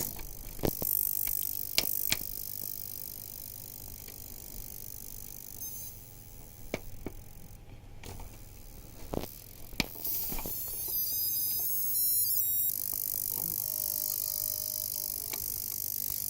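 LG LHA725 home cinema system giving off irregular sharp clicks and cracks, a dozen or so at uneven intervals, over a steady hiss and low hum. The owner takes the clicking for a defect, which LG says is normal.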